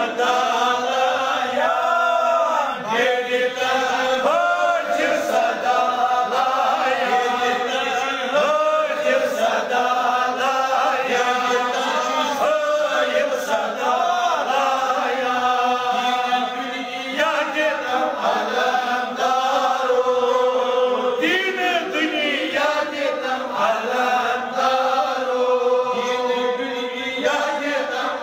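Sufi devotional chanting: voices singing a continuous, melodic recitation with long, gliding notes.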